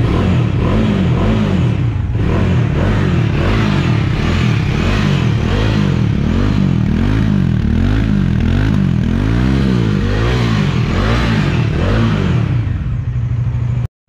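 Bajaj Dominar 400's single-cylinder DOHC engine revved over and over through its dual exhaust, the pitch rising and falling in quick repeated throttle blips from a brief idle. Near the end it eases back toward idle.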